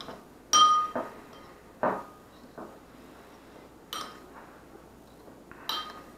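Spoon clinking against a dish several times, a second or two apart, each strike leaving a short bright ring; the first, about half a second in, is the loudest.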